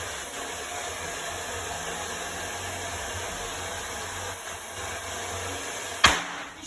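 Handheld hair dryer blowing with a steady rushing noise while it throws small sparks. About six seconds in there is one sharp, loud bang, and the dryer's noise dies away after it.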